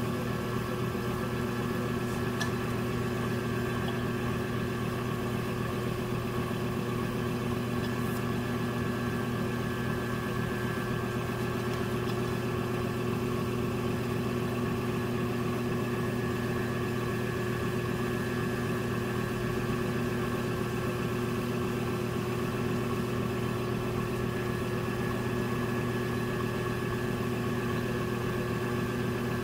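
Electric potter's wheel motor running with a steady hum while a porcelain pot is trimmed on it.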